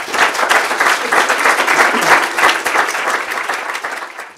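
Audience applauding at the end of a talk, a dense patter of many hands clapping that eases off toward the end.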